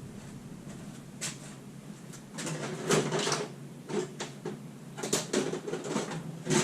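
Hands working at the plastic electrical connector on an engine coolant temperature sensor, giving irregular clicks, scrapes and rattles of plastic and wiring as the stuck connector resists coming off.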